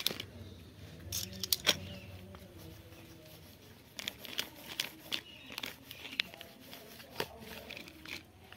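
Scattered sharp clicks and light crinkling, like small objects being handled, with a loud cluster of clicks about a second and a half in and a quicker run of them in the second half.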